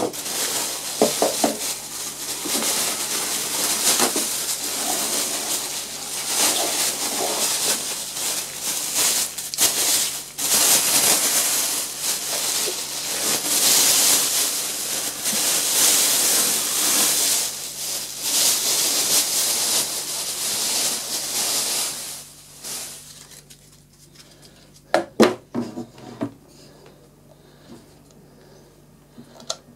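Packaging and plastic parts being handled during unboxing: continuous rustling and rubbing dotted with clicks, until it drops away about 22 seconds in. A few sharp clicks and knocks follow near the end.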